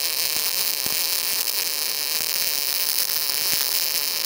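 MIG welding arc from a Tenya MIG 255 welder burning wire into steel: a steady hiss with a few faint pops.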